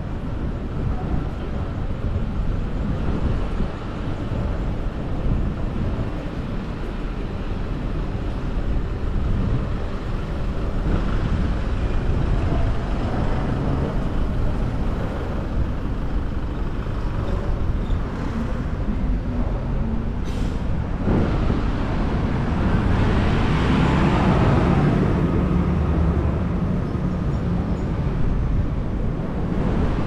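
Road traffic noise on a city street, steady throughout. A brief hiss comes about two-thirds of the way in, and a heavy vehicle passes soon after, growing louder and then fading.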